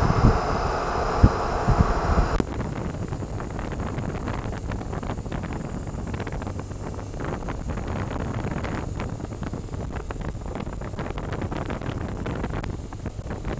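Wind rushing over a helmet camera's microphone while riding a BMW R1200RT motorcycle, with low buffeting thumps in the first couple of seconds. About two and a half seconds in, the sound abruptly turns quieter and duller and stays a muffled rush.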